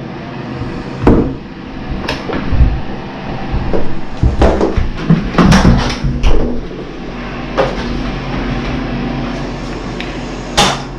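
A string of irregular knocks and bumps from doors and a handheld Nerf blaster being moved about. A steady low hum sets in from about seven seconds in.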